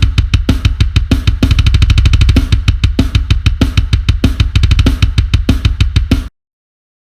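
Sampled acoustic drum kit from a Kontakt drum library playing a busy groove with a heavy bass drum, snare and cymbals. It cuts off abruptly about six seconds in, leaving dead silence.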